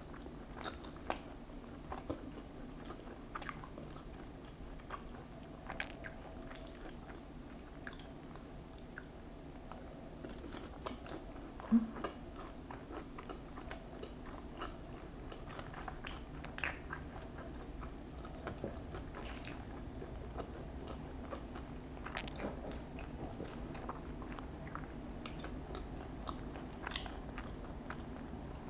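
Close-miked chewing and biting of boneless sauced fried chicken, with scattered crisp crackles of the coating. One louder short low thump comes near the middle.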